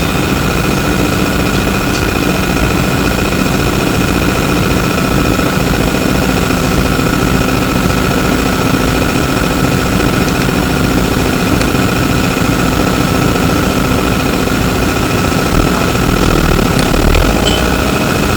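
Interior noise of a Flyer E902 electric trolleybus: a steady rumble with a constant high-pitched whine, with no marked changes.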